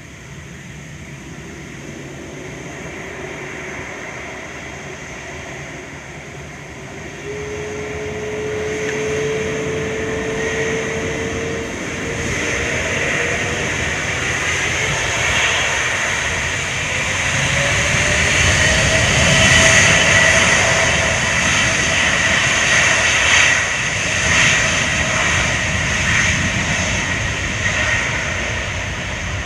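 Jet airliner engines building in loudness, with whines gliding upward in pitch; the sound is loudest about twenty seconds in, then eases slightly.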